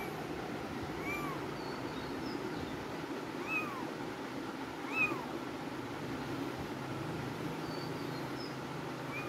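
Kittens mewing: short, high, arched mews every second or two, over a steady low background noise.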